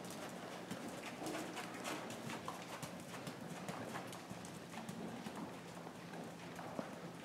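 A horse walking on the sandy footing of an indoor arena: soft, irregular hoofbeats, over a steady low hum.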